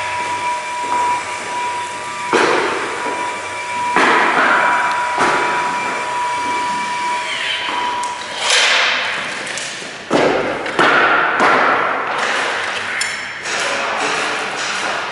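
Subfloor construction work: a series of heavy thuds and knocks, some with a ringing tail, over a steady high-pitched whine that stops about eight seconds in.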